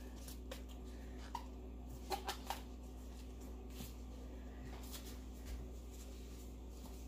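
Faint rustling and small clicks of disposable gloves being worked onto damp hands, with a quick cluster of three clicks about two seconds in, over a steady low hum.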